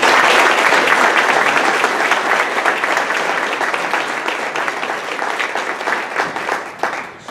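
Audience applauding, many hands clapping at once: loud at first, then gradually dying away near the end.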